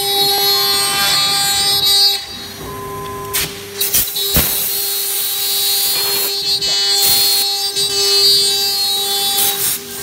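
CNC router spindle whining at a steady pitch as it cuts MDF. It is louder for about the first two seconds and the last four, quieter in between, with a couple of sharp clicks near the middle.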